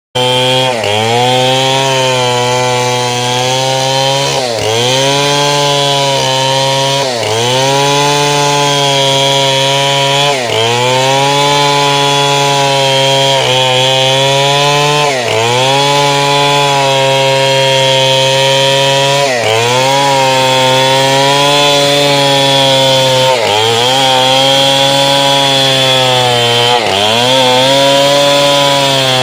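Chainsaw running at high revs while cutting through a large trunk of old, dense wood. Its engine note sags sharply and climbs back about every three to four seconds.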